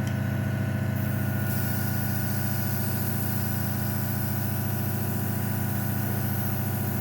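Hobby airbrush compressor running with a steady hum, and about a second in the airbrush's hiss of air and thinned paint starts and holds.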